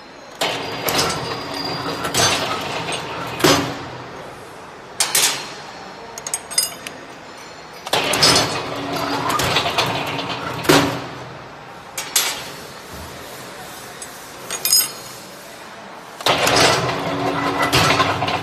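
U-bolt bending machine's motor running while its turntable bends steel rod, three times for about three seconds each. The first two runs end in a sharp metal clank, and between runs there are clinks of steel rod and parts being handled.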